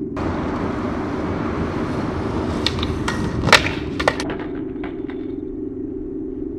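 Skateboard wheels rolling on concrete, then a run of clacks and smacks a few seconds in, the loudest a single sharp smack, as the skater bails the trick and he and the board hit the ground. Smaller clatters follow as the board settles.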